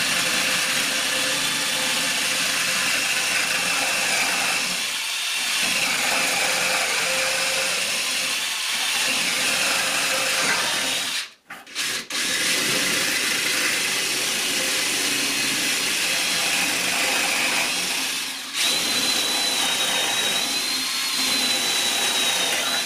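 DeWalt cordless drill with an 8 mm bit boring bolt holes through a wooden headboard post. It runs almost continuously, stopping briefly about 11 seconds in and again about 18 seconds in, and its whine runs higher after the second stop.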